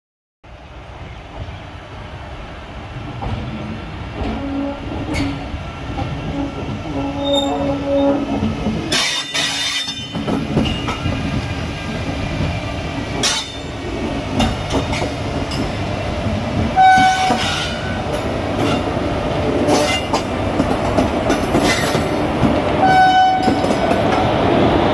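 Indian Railways WDG-3A diesel locomotive approaching and passing at close range. Its engine runs louder as it nears, and the wheels click over the rail joints as it goes by.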